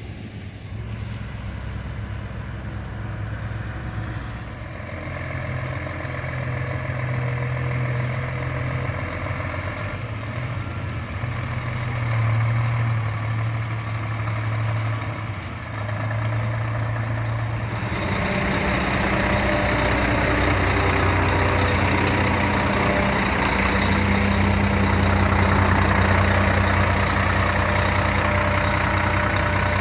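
Heavy diesel truck engine running at varying speed, its pitch shifting up and down. About two-thirds of the way through, the sound changes suddenly to a louder, steady engine run with a strong hiss over it.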